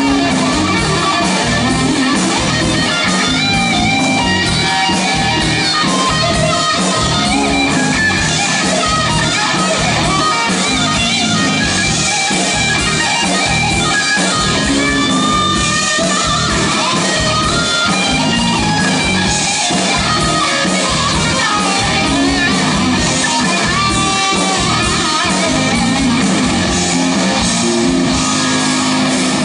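Live rock band playing loud, with electric guitar out front over bass and drums.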